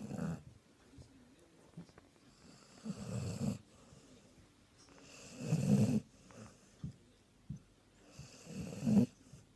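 A sleeping Sprollie (springer spaniel and border collie cross) snoring loudly, one snore about every three seconds with quiet breathing in between.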